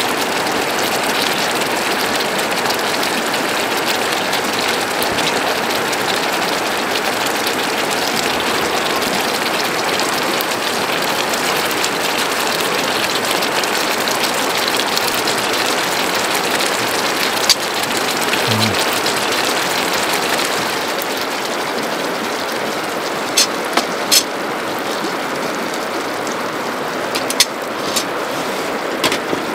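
A large pan of thick, spicy octopus-and-intestine stir-fry sauce bubbling and sizzling steadily on a gas camping burner. The sizzle eases slightly partway through, and a few light clicks come near the end.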